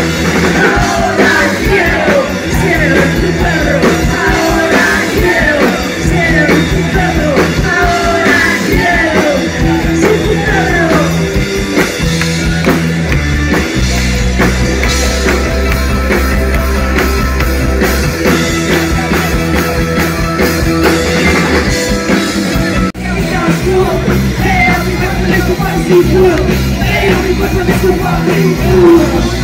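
Live rock band playing loud, with a woman singing over electric guitar, bass and drums. About halfway through the singing gives way to an instrumental passage with a heavy low end. After a brief drop near the three-quarter mark, the singing comes back in.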